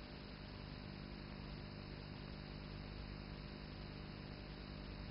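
Steady hiss and low hum of an old film soundtrack, with no other sound.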